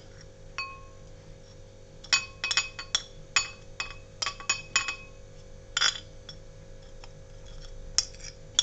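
Metal spoon clinking and scraping against a glass plate and a glass bowl while spices are scraped off the plate, in scattered sharp clinks with a short ring. The clinks come thickest in the middle seconds and again near the end.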